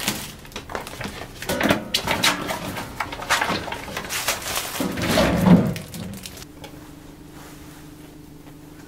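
A quick run of clattering knocks for about six seconds, with a louder swell near the middle, then a steady low hum with a few held tones.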